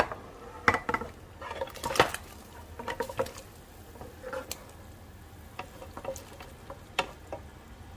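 Browned pork ribs scraped off a frying pan into a pot of boiling water: scattered knocks and clinks of the pan against the pot, pieces dropping into the water, over the steady bubbling of the boil.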